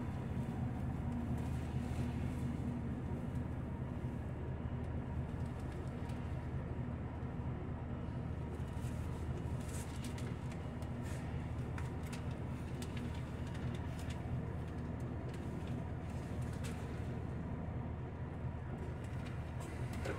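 Tokyu city bus's diesel engine running at a steady low hum, heard from inside the passenger cabin, with a few light clicks and rattles near the middle.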